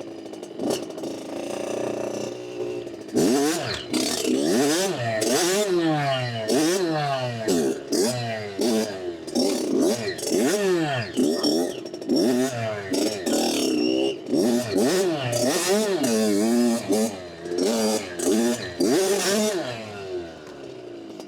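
Dirt bike engine running low for a few seconds, then revving up and down again and again as the throttle is opened and closed while riding, its pitch climbing and dropping about once a second before easing off near the end.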